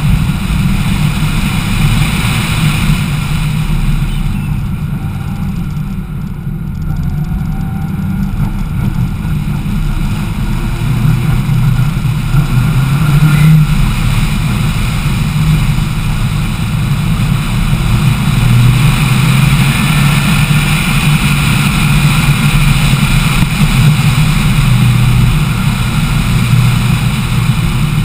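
Lancia Delta HF Integrale Evo rally car's turbocharged four-cylinder engine running hard at speed, heard through a camera mounted on the outside of the car with wind and tyre noise. It eases off about four seconds in and pulls hard again from about ten seconds.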